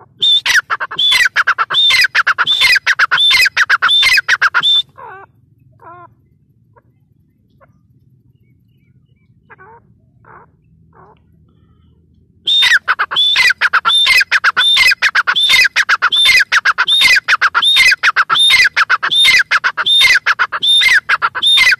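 Grey francolin calling: a loud run of repeated calls, about two a second, each with falling notes. It breaks off for several seconds with only a few soft notes, then starts the same calling again.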